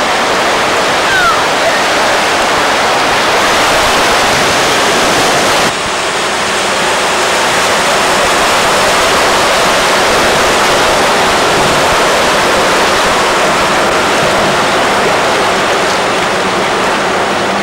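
Steady rush of floodwater across a flooded street, with vehicles wading through it. The level drops briefly about six seconds in, then the rush carries on.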